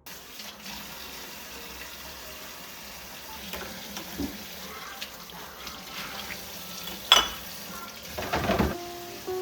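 Water running steadily from a kitchen tap into a sink, with a sharp knock about seven seconds in and a short clatter just after, as things are handled under the stream.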